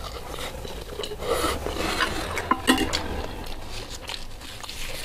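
Close-up eating noises from a mouthful of ramen, with a metal spoon and fork clinking against a glass baking dish; a few sharp clinks come about two and a half seconds in.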